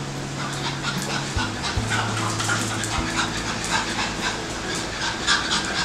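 Pug puppy panting, with quick sharp clicks of its claws on the polished stone floor as it scampers about.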